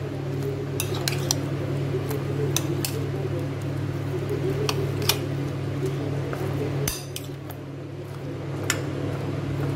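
A metal spoon clinking against a glass bowl as cooked eggplant pieces are stirred into yogurt: about ten light, irregular clinks over a steady low hum.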